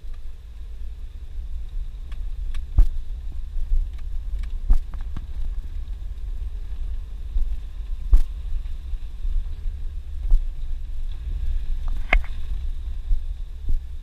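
Suzuki Jimny heard from inside the cabin driving slowly along a rutted dirt track: a steady low rumble of engine and tyres, with scattered knocks and rattles as it goes over bumps, the loudest about 12 seconds in.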